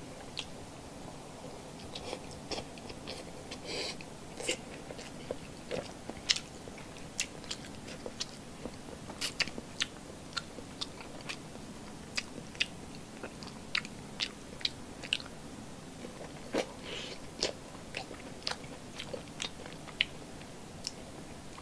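Close-miked mukbang eating: a mouth chewing and biting paksiw milkfish belly fat, rice and a long green chili, with irregular wet smacks and sharp mouth clicks.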